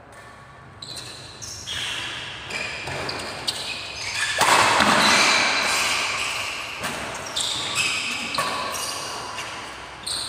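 Badminton rally: a run of sharp racket strikes on the shuttlecock and shoe squeaks on a tiled court, echoing in a large hall. About four and a half seconds in comes a louder, noisier stretch, the loudest part.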